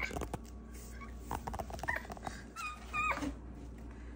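Woven vinyl placemats being handled and pushed into a wooden cabinet, rustling and tapping. About two-thirds of the way in come two short, high-pitched squeaky calls.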